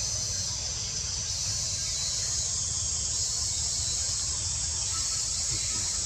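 A steady, high-pitched drone from a chorus of insects, with a low rumble underneath.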